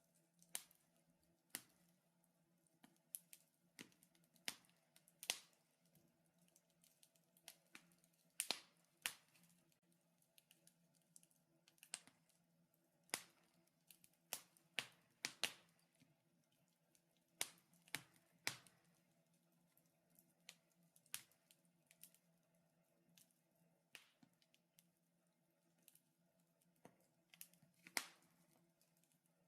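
Burning firewood crackling: irregular sharp snaps and pops, a few close together, over a faint steady hum.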